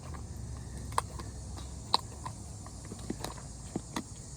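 Sticky clicks and squelches of homemade glue slime being kneaded by hand, a scatter of short sharp pops, the sharpest about one and two seconds in, over a steady low outdoor rumble.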